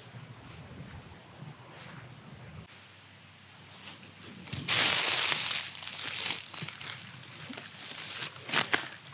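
Dry straw mulch and chive leaves rustling and crunching as a clump of chives is handled and picked by hand, with a loud rustle about five seconds in and a few sharp crackles near the end.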